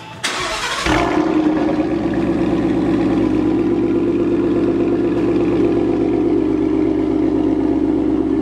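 A car engine starting with a brief burst of noise, then idling steadily and loudly.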